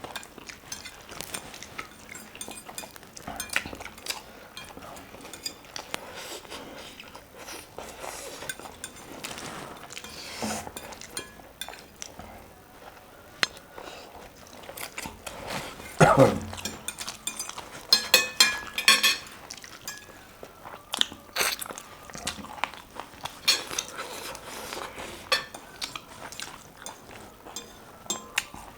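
A person eating close to the microphone: chewing and crunching, with cutlery and dishes clicking and clinking at irregular moments. A louder cluster of clinks comes past the middle. About 16 seconds in there is one short, loud sound that falls in pitch.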